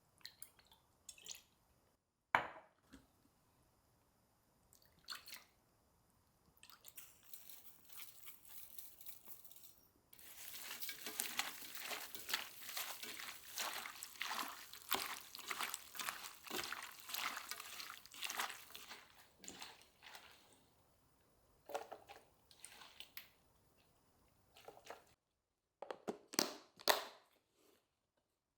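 Kitchen cooking sounds: a few scattered clicks and taps, then about nine seconds of dense crackling liquid noise in the middle, followed by more light clicks near the end.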